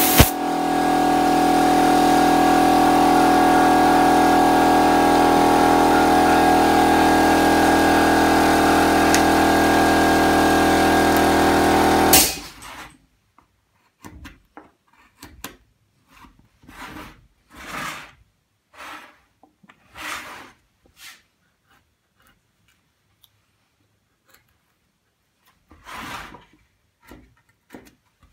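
A small handheld rotary carving tool runs with a steady whine and cuts off suddenly about twelve seconds in. After that a small hand chisel cuts into the wooden relief in a dozen or so short, separate strokes.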